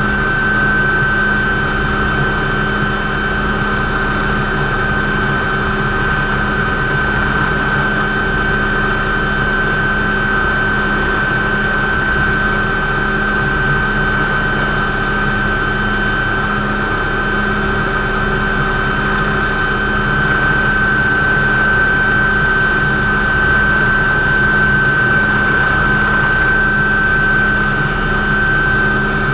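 McDonnell Douglas MD500C helicopter's turbine engine and rotor running steadily in a low hover, heard from inside the cockpit: a constant high whine over a steady rotor drone.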